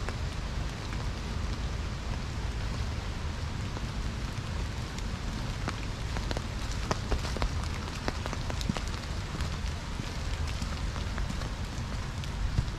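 Steady rain falling on wet ground and leaves, with scattered sharp clicks that are thickest between about six and nine seconds in.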